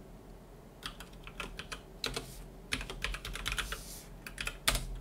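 Typing on a computer keyboard: several quick bursts of keystrokes separated by short pauses, with a last few clicks near the end.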